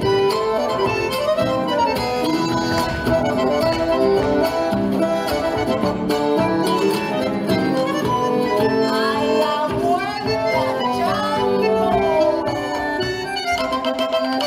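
Argentine folk dance music with an accordion leading the melody, playing loud and without a break.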